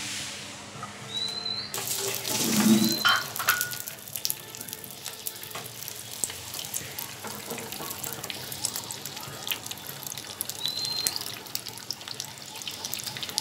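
Beaten egg with chopped onion hits hot oil in a small nonstick frying pan with a sudden loud sizzle about two seconds in. It then keeps frying with a steady sizzle and crackle as the egg sets and puffs at the edges.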